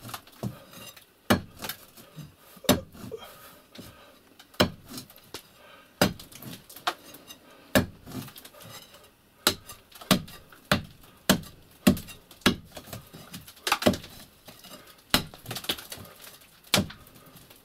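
Irregular sharp knocks and clinks of brick and mortar as a brick stove wall is chipped and pried open by hand to reach the sooted flue, roughly one strike every second.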